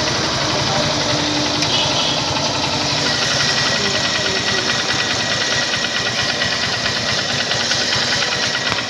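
Air-cooled motorcycle engine idling steadily, with an even, rapid firing rhythm.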